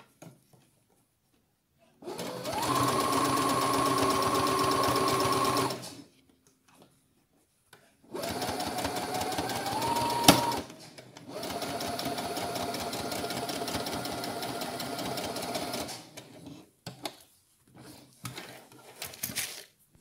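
Electric domestic sewing machine stitching fabric in three runs of a few seconds each, with short pauses between. The second run speeds up just before it stops with a sharp click, and short rustles of the fabric being handled come near the end.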